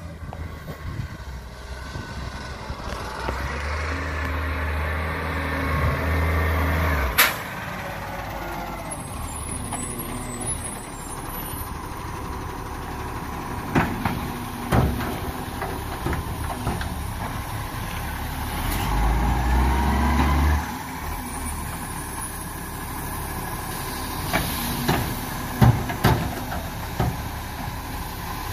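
Side-loader recycling truck on a 6x2 chassis running at the kerb: the diesel engine swells heavily twice, as for the hydraulic bin lifter, with several sharp clunks and air-brake hisses in between.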